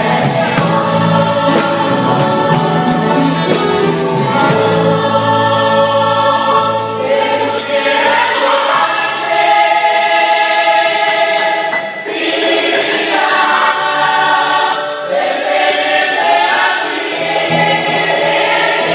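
United choirs singing together through microphones and loudspeakers, with musical accompaniment underneath; the low bass part drops out about halfway through and comes back near the end.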